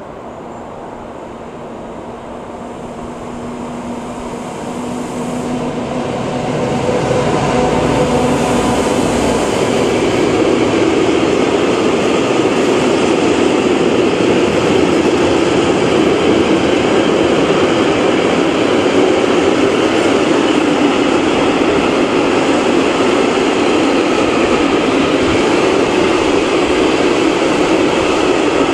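Two class 1800 electric locomotives approach with a hum that grows louder and pass about seven seconds in. A long train of tank wagons then rolls by with a steady rumble of wheels on the rails.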